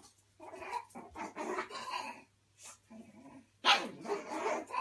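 Black pug puppy barking in several short bouts, the loudest about three-quarters of the way through. It is barking at its own reflection in a mirror.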